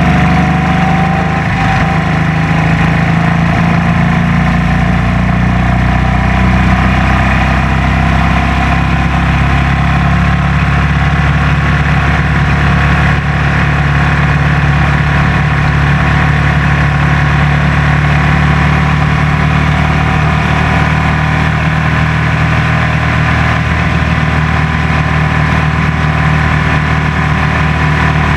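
Bandolero race car's single-cylinder Briggs & Stratton engine running steadily at racing speed, heard loud from inside the open cockpit. Its pitch rises slightly about a second in, then holds.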